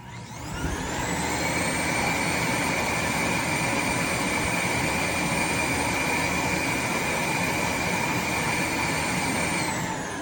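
Eureka robot vacuum's self-emptying station, its suction motor spinning up with a rising whine, running steadily at full speed, then winding down near the end as it empties the robot's dustbin.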